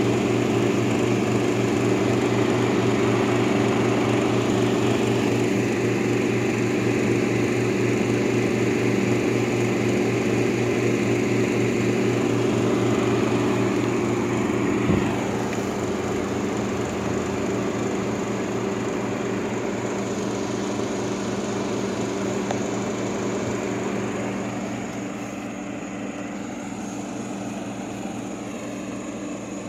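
1958 Carrier 4,500 BTU window air conditioner running with its compressor and fan on: a steady hum under the rush of blowing air. A brief knock comes about halfway, after which the sound is a little quieter, and quieter again near the end.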